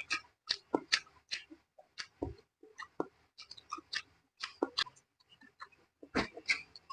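A person chewing and smacking their lips while eating braised pork leg (paksiw na pata): quick, irregular wet smacks and clicks, several a second, with short pauses.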